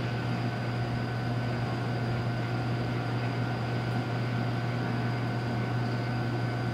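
Steady railway-platform ambience: a constant low hum with a few faint steady whines over an even hiss, with no train passing.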